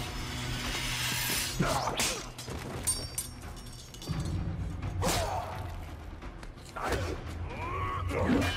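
Fight-scene sound effects: several sharp hits and thuds with pained grunts and cries, over a low drone.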